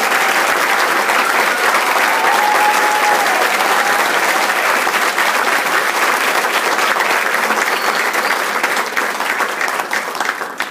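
Audience applauding after a choral number: dense, steady clapping from a large crowd that dies away in the last second.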